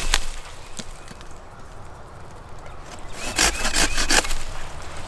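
Large folding pruning saw cutting into a rotten stump in search of fatwood: a sharp knock at the start, then a quick run of about four saw strokes a little after three seconds in.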